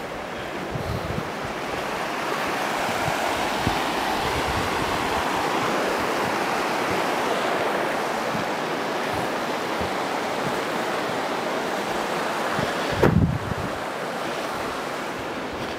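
Mountain river rushing over rocks in a steady wash of white water, with wind buffeting the microphone and a short thump about thirteen seconds in.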